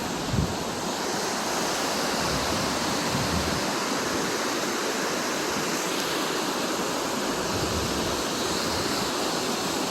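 Floodwater of a swollen creek rushing steadily, with a few low gusts of wind buffeting the microphone.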